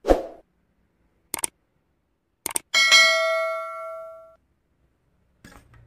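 Subscribe-button animation sound effect: a short hit, two quick mouse-style clicks, then a bell ding that rings out and fades over about a second and a half.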